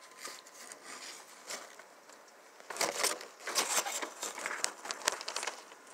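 Horizontal window blind slats pushed apart by hand, clicking and rattling in quick irregular clusters, loudest in the middle of the stretch, over a faint hiss.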